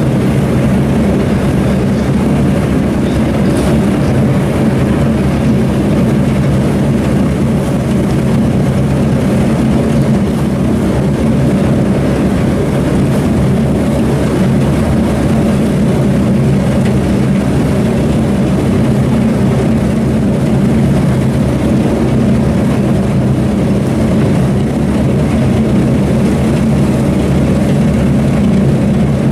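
Engine running steadily: a loud, even, low drone that holds one pitch throughout.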